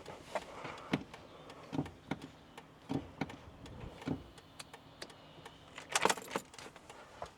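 Scattered faint clicks and knocks from handling around a car, with a louder clatter about six seconds in.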